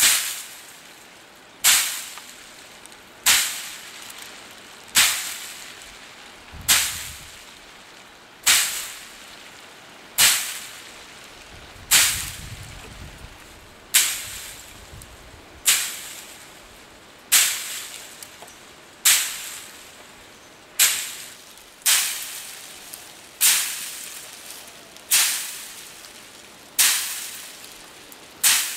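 A stick or rod beating a pile of dry plant stalks, a sharp swishing stroke about every 1.7 seconds that fades quickly: the steady rhythm of hand threshing.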